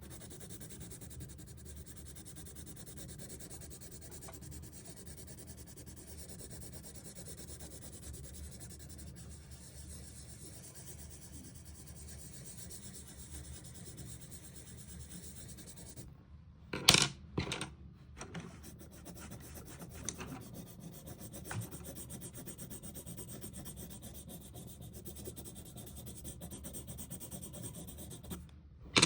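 Steady, close-up rubbing or scraping. About sixteen seconds in it breaks off for a moment with two loud knocks, then carries on, ending in a sharp click.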